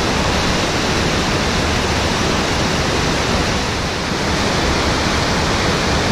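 Whitewater rapid pouring over boulders and a ledge drop: a loud, steady rushing of water, dipping slightly for a moment about four seconds in.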